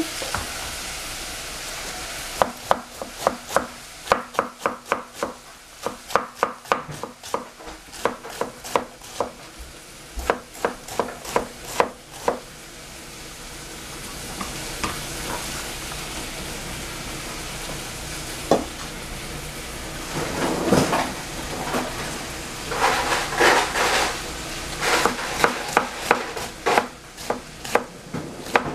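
Chef's knife chopping cabbage on a plastic cutting board: a run of sharp knife strikes, about two or three a second, then a lull, then quicker bursts of chopping near the end, over a steady hiss.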